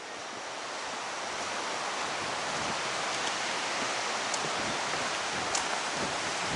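Steady rushing wind noise, with faint footsteps on a wooden boardwalk.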